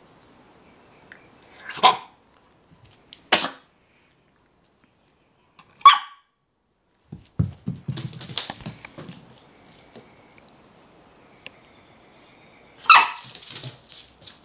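Small shaggy dog barking: four single, sharp barks, widely spaced, while it waits for the ball in a game of fetch. A stretch of scuffling and rustling comes in the middle.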